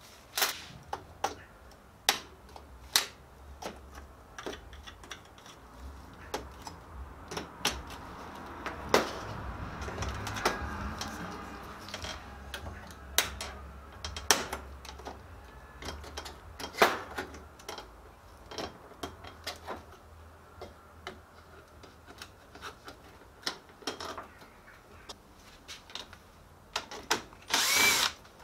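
Sharp clicks and clinks of screws, a screwdriver and pliers handled on the sheet-metal chassis of a copier control panel and a steel bench, then near the end a cordless drill-driver runs for about a second on one of the panel's screws.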